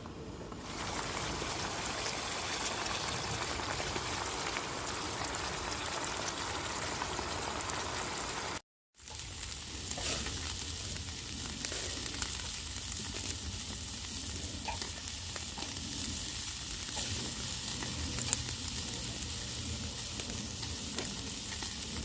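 Food frying in a pan: a steady sizzling hiss with scattered small pops. It cuts out briefly about nine seconds in and resumes.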